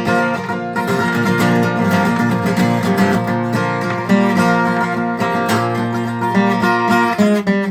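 Instrumental break in an upbeat country gospel song, led by strummed acoustic guitar.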